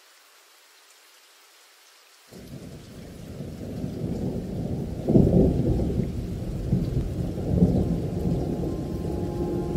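Thunder rumbling: it cuts in suddenly about two seconds in after a faint hiss, builds, and swells louder twice, about halfway through and again a couple of seconds later.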